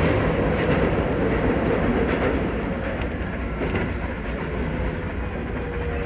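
Keisei 3000-series electric train running, heard from inside the cab: a steady rumble of wheels on rail with light clicks, easing slightly in the second half as the train enters a station. A faint steady whine comes in near the end.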